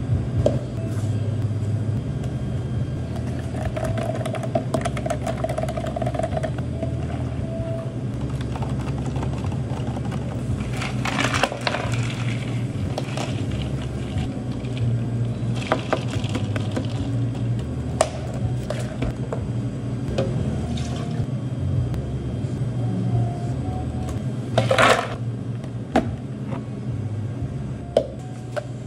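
Barista making iced drinks at a café counter: liquid pouring, with cups, lids and spoons clicking and knocking. Several short rushing bursts come in along the way, over a steady low hum.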